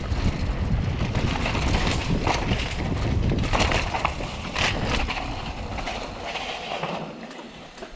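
Mountain bike ridden fast down a dirt singletrack: wind buffeting the camera microphone as a low rumble, with tyre noise and short rattling knocks as the bike goes over bumps. The rumble fades near the end.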